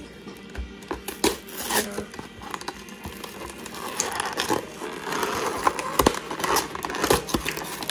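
Plastic wrapping on a Pokémon card box being torn and crinkled as the box is opened: irregular rustling with sharp crackles, growing louder in the second half.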